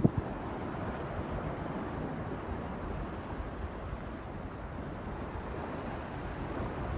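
Steady rush of ocean surf, with some wind noise on the microphone.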